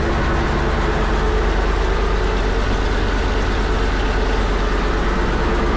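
Fishing boat's engine running steadily and loud: a constant, deep drone that does not change.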